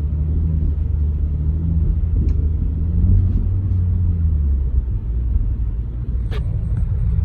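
BMW M3 Competition G80's twin-turbo straight-six running with a low drone that eases off about five seconds in, with a faint click a couple of seconds in and a sharper knock near the end. This is the rear driveline knock that comes when the throttle is lifted, which the mechanic suspects is in the gearbox or the rear differential.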